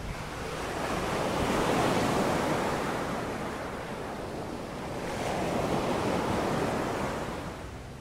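Mediterranean surf: waves breaking and washing up the beach, a rushing sound that swells about two seconds in and again around six seconds.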